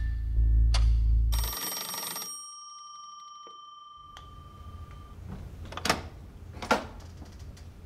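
Music with a deep bass and clock ticks cuts off as an electronic doorbell rings once, its tone ringing on and fading over a few seconds. Then come a few soft footsteps, with two sharper thumps near the end.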